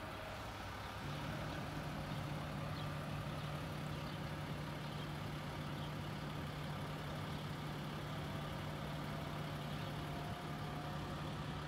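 Engine idling steadily: a low, even hum that sets in about a second in and holds the same pitch.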